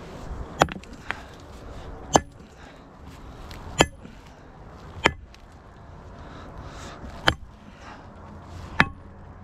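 Sledgehammer striking a large stone, six sharp heavy blows one to two and a half seconds apart with a lighter knock after the first, each with a short metallic ring. The stone holds and does not break.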